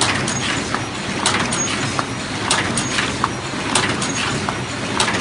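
Paper cup making machine running: a steady mechanical hum with sharp clacks of its moving parts coming two or three times a second.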